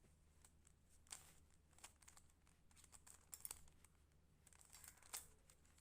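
Faint, scattered clicks of a plastic Rubik's cube being turned and handled, a handful of separate clicks over a few seconds.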